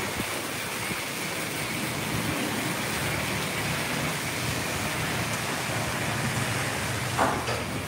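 PDQ Laserwash touchless car wash arm spraying spot-free rinse water over a vehicle: a steady hiss of spray drumming on the bodywork, with one brief louder swish near the end.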